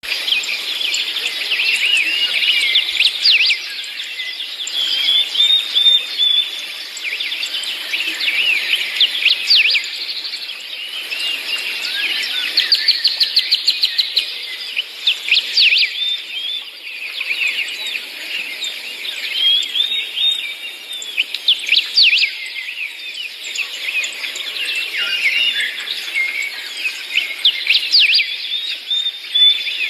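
Many small birds chirping, whistling and trilling together without a break, including a fast run of notes about halfway through, over a faint wash of the sea.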